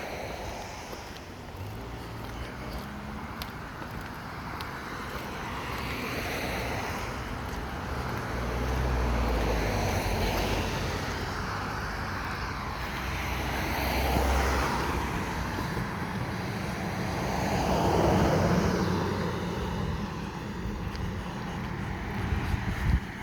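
Street traffic: cars passing one after another, their road noise swelling and fading several times.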